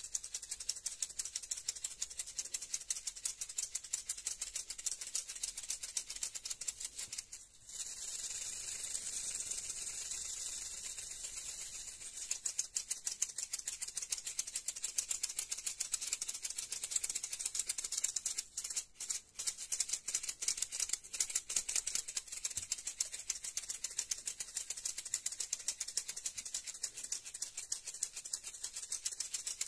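Maracas shaken in a fast, continuous high-pitched rattle. The shaking stops briefly about seven seconds in and twice around nineteen seconds. For a few seconds after the first pause it turns into a smoother, unbroken swish.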